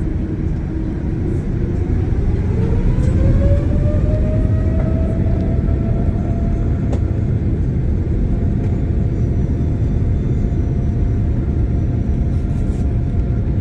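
A Boeing 787-9's turbofan engines spooling up to takeoff thrust. A whine rises in pitch over a few seconds and then holds steady over a loud low rumble.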